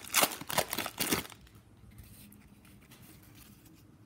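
Foil wrapper of a hockey card pack crinkling and tearing as it is ripped open by hand, stopping about a second in.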